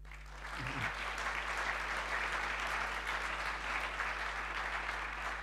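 Audience applauding: dense, steady clapping that builds in the first half second and begins to fade near the end.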